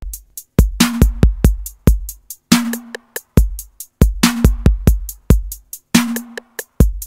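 Music intro: a drum-machine beat with deep bass kicks and sharp snare hits, no vocals yet.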